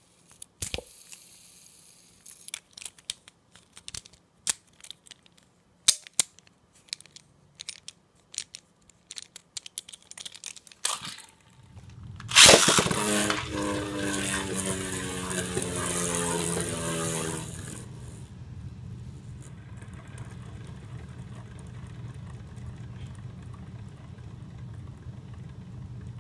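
Scattered clicks of plastic Beyblade parts being handled, then the Caynox C3 Beyblade launched about twelve seconds in with a loud burst. It whirs in a plastic stadium with a pitch that slowly falls, and after about five seconds it settles into a steadier, quieter low hum as it keeps spinning.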